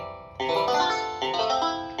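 Electronic kalimba set to its electric-guitar voice, its keys pressed one after another: a run of synthesized guitar-like notes beginning about half a second in, each starting sharply and dying away.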